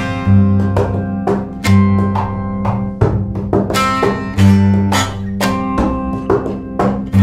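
Instrumental music: a plucked string instrument picking a quick, even run of notes over bass notes held for about a second at a time.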